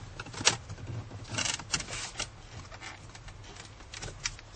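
Plastic dash trim strips being pried and popped off their clips: a sharp click about half a second in, then a run of clicks and scraping rub, with a couple of fainter clicks near the end.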